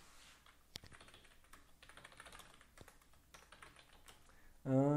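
Computer keyboard typing: a run of quick, irregular key clicks as a short phrase is typed. Near the end a person's voice briefly breaks in, louder than the typing.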